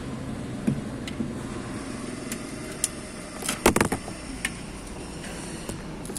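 A mobile phone that is filming falls and knocks against hard surfaces: a quick cluster of sharp knocks and clatter about three and a half seconds in, among a few lighter handling clicks.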